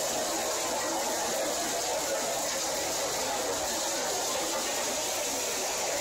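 Steady machinery noise of a small scrap line running: a hammer mill and conveyor belt working, with no distinct strokes or pauses.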